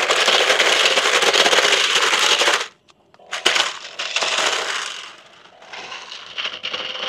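Battery-powered RC stunt car spinning in place: its electric drive motors run with a faint whine while the wheels scrub and rattle in a dense rattling noise. It stops suddenly about two and a half seconds in, then runs again in shorter, quieter bursts as the throttle is worked.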